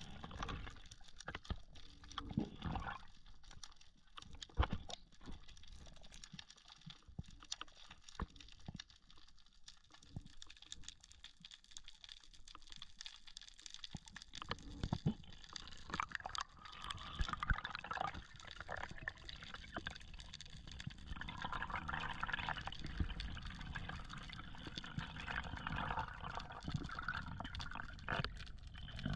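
Water moving around an underwater camera, with scattered sharp clicks and knocks. The sound grows busier and louder from about halfway through.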